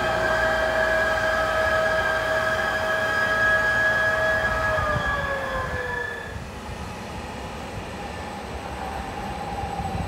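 Electric locomotive of a regional train giving a steady high whine in several tones from its traction equipment, which slides down in pitch about five seconds in and stops about a second later, leaving a quieter steady rumble.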